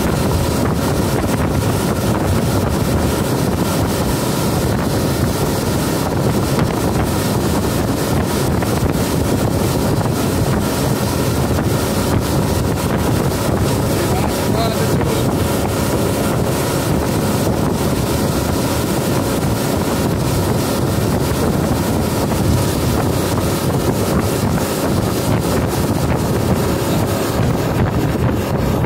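Outboard motorboat running steadily at speed while towing a tube, with heavy wind buffeting on the microphone and the rush of the wake.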